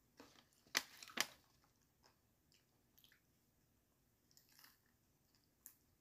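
Crunching and chewing of crispy fried chicken, with two sharp crunches close together about a second in and fainter crackles after.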